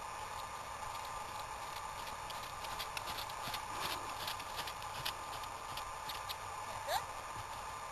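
Horse's hooves beating on arena sand as it trots, a run of irregular soft footfalls that are clearest around the middle as the horse passes close. A brief rising squeak near the end.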